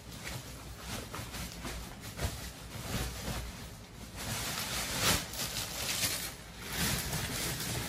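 Plastic parts packaging being handled: irregular rustling and crinkling with many small clicks, busier in the second half.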